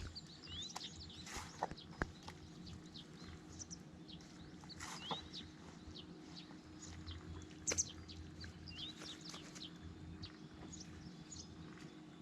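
Small birds chirping in short, quick, gliding notes. A few sharp knocks come through, two in the first couple of seconds and one about two-thirds of the way through.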